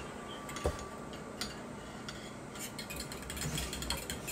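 A metal fork beating raw eggs in a bowl: irregular light clicks of the fork striking and scraping the side of the bowl, bunched together a little past the middle.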